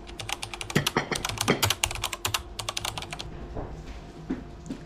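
Computer-keyboard typing sound effect: a quick run of key clicks for about three seconds that then stops, laid under an on-screen title being typed out letter by letter.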